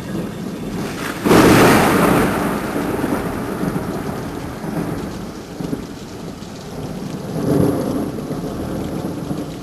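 Steady rain with a loud clap of thunder about a second in that rumbles away over several seconds, then a second, smaller roll of thunder near the end.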